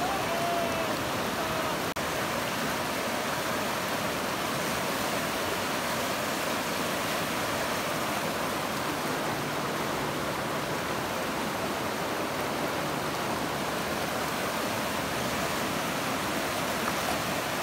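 River rapids: a steady rush of fast whitewater.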